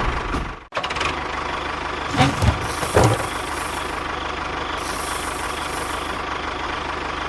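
A small machine's motor running with a steady hum, cutting out briefly under a second in, with a few knocks around two and three seconds in.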